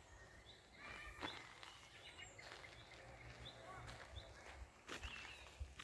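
Faint outdoor birdsong, short rising chirps repeated every second or so, with a couple of soft footsteps on a gravel path.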